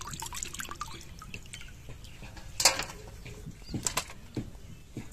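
Water dripping and splashing into a steel bowl of cut fish pieces being rinsed, with a few sharp clinks further in.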